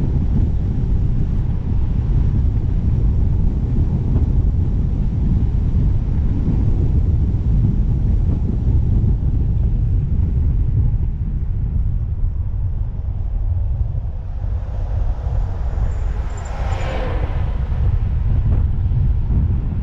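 A steady low rumble throughout. Late on, an engine passes by, its pitch falling as it goes.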